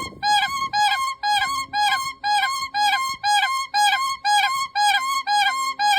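A bird repeating a flute-like two-note call, a lower note then a slightly higher one, steadily about twice a second.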